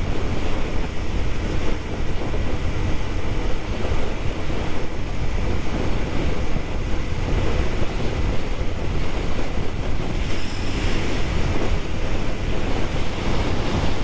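Steady wind rush buffeting the camera's microphone on a motorcycle at highway speed. It is a loud, even roar with the engine largely buried beneath it.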